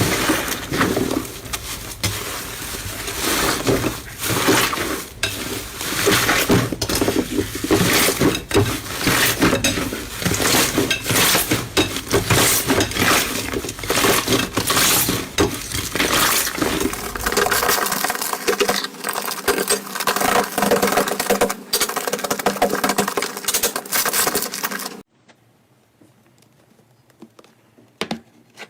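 Slime being squeezed and worked by hand: a dense, continuous run of crackles and small pops that stops abruptly near the end, followed by a couple of faint clicks.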